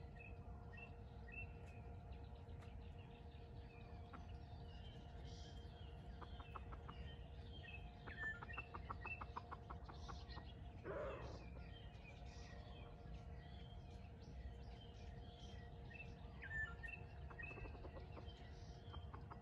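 Faint birdsong, with small birds chirping throughout. There is a rapid run of clicks from about six to nine seconds in, and one call from a red junglefowl about eleven seconds in that drops in pitch.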